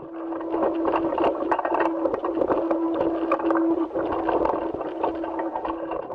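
Steady hum with dense crackling and clicking, the noise on a spacewalk video's audio track, heard played back through a speaker.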